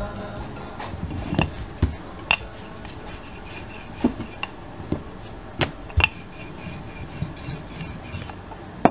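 Wooden rolling pin with handles rolling dhall-puri dough on a floured wooden board: a steady rasping rub, broken by several sharp, irregular knocks.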